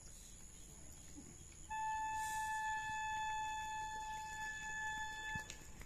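A single held flute-like note at one steady pitch. It starts abruptly about two seconds in, lasts about four seconds and cuts off sharply.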